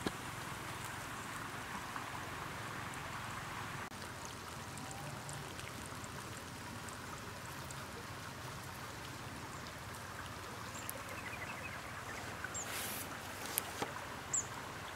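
Steady rush of a stream flowing, with a few light clicks in the last few seconds.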